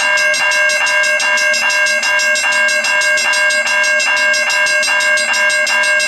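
A cast-iron Griswold mechanical railroad crossing bell and a General Electric electronic crossing bell ringing together: a rapid, even string of strokes over a steady ringing tone.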